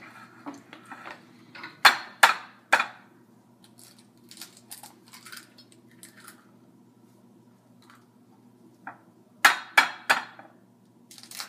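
Eggs being cracked by tapping them against the rim of a glass baking dish: three sharp taps about two seconds in and another three about nine and a half seconds in, with small clicks of shell between.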